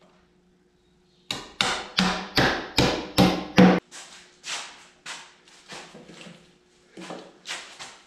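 A hammer striking into white cedar: about seven hard blows in quick succession starting a second in, followed by a run of lighter knocks.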